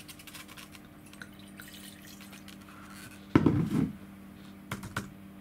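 Wine glasses being handled on a table: light glass clinks, then about three seconds in a short, loud splash of wine poured into a glass, followed by a few sharp knocks as glass or bottle is set down.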